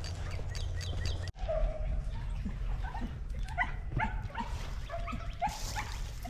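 Hog-hunting dogs barking in the distance: a scattered string of short barks that starts about a second and a half in.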